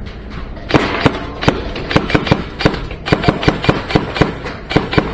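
Airsoft guns firing semi-automatic: a string of sharp cracks, several a second, starting under a second in.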